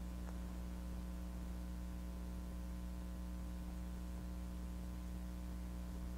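Steady electrical mains hum, a low tone with a stack of even overtones, holding level throughout.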